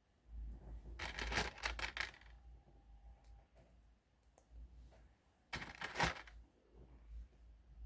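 Small plastic Lego pieces clattering, in two bursts of rapid clicking: one about a second in lasting about a second, a shorter one near six seconds, with quieter handling between.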